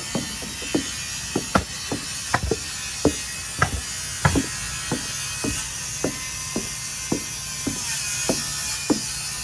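Hammering at timber framing: sharp knocks, about two a second, some louder than others, over a steady low hum.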